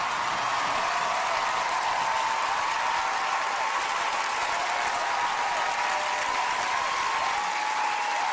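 Large studio audience applauding and cheering, swelling in the first second and then holding steady.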